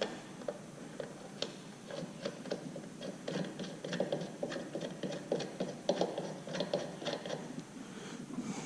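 Irregular light metal clicks and taps, several a second and busiest in the middle, from hex flange bolts being handled and put back into their holes in the engine's crankcase.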